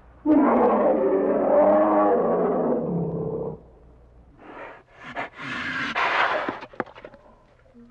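A bear roaring: one loud roar of about three seconds, then after a short pause a quieter, rougher call broken into breathy bursts.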